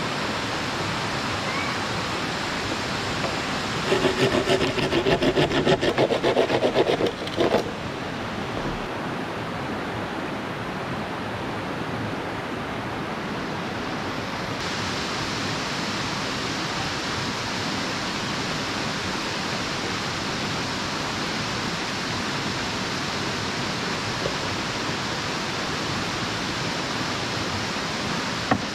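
Shallow rocky river rushing steadily over stones. About four seconds in, a louder burst of rapid rattling strokes lasts some three seconds, and there is a single sharp knock at the very end.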